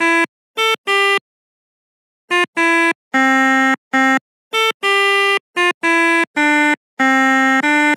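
Pianika (melodica) playing the Indonesian 'telolet' bus-horn tune: a run of reedy notes, some short and some held, in quick phrases with a pause of about a second early on.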